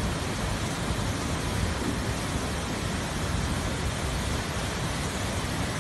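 Muddy floodwater rushing through a stone channel in a steady rush of noise.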